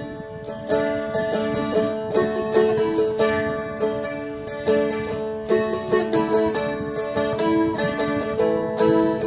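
A Seagull Merlin M4, a four-string dulcimer-style strumstick, picked: a quick melody line with descending note runs in D over a steadily ringing drone note.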